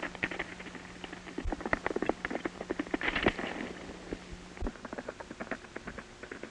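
A horse galloping on dirt: a quick, uneven run of hoofbeats, with a louder rush of noise around three seconds in.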